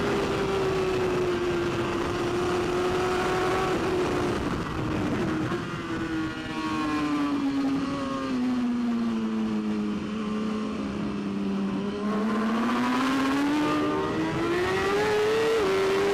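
BMW S1000RR superbike's inline-four race engine heard from onboard at speed over wind rush. The revs hold high, then fall steadily for several seconds as the bike slows, and climb again as it accelerates hard, with a quick gear change near the end.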